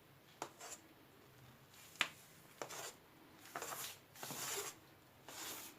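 Faint scraping and rubbing of a utensil smoothing the cheesecake's cream topping in its dish: a few light taps, then three short scraping passes near the end.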